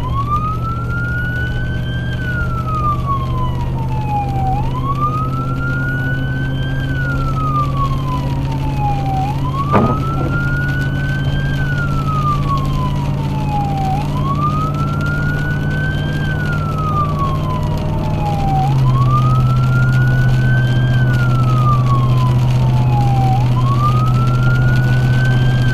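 Emergency vehicle siren on a slow wail, each cycle rising quickly and falling slowly about once every five seconds, over the steady drone of the responding vehicle's engine and road noise. The drone shifts in pitch about two-thirds of the way through, and there is a single sharp click about ten seconds in.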